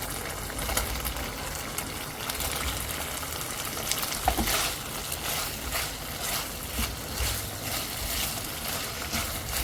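Food frying in hot oil, a steady sizzle dotted with sharp crackles that stops near the end.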